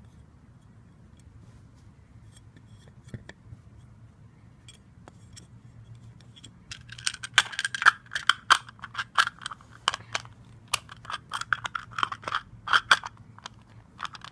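Small plastic lunchbox-shaped eraser case being handled, its erasers and lid rattling. Faint scattered clicks at first, then from about seven seconds in a run of sharp, irregular plastic clicks and rattles, several a second.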